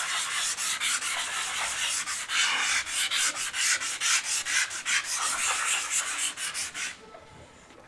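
Hand sanding of dried smoothing filler with a P150 abrasive foam pad: quick back-and-forth rubbing strokes that stop about a second before the end.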